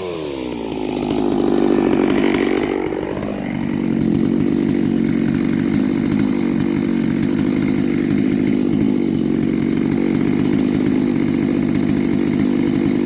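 Neo-tec NS892 two-stroke chainsaw with a .404 chain cutting wood. The engine pitch dips and recovers over the first few seconds, then holds steady under load in the cut.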